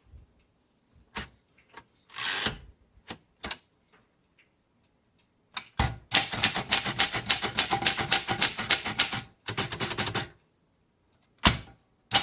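A 1938 Royal Junior portable typewriter: a few scattered key clicks and a short rasp in the first few seconds. Then comes a fast run of typing lasting about four seconds, and one last single strike near the end.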